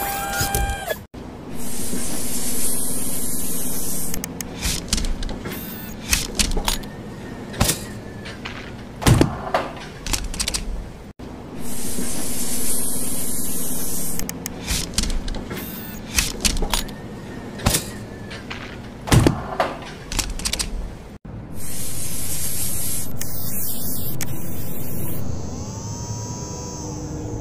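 Sound effects of an animated conveyor production machine: a steady spraying hiss for a couple of seconds over a low machine hum, then a series of mechanical clicks and clunks. The same pattern starts over about every ten seconds.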